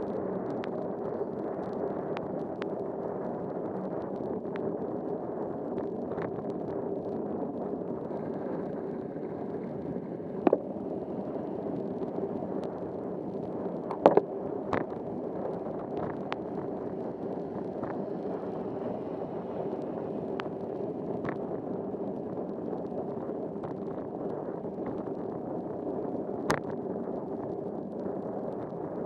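Bicycle ride in the rain on a wet street: a steady, muffled rush of tyre and rain noise, broken by a few sharp knocks, the loudest about 14 seconds in.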